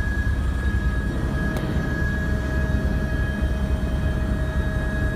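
Police helicopter's rotor and engine noise as heard from on board: a steady low rumble with a constant high whine over it.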